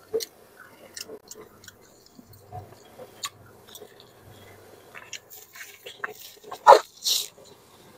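Close-miked eating sounds: wet chewing and small lip smacks, with two louder smacks near the end as fingers are sucked clean.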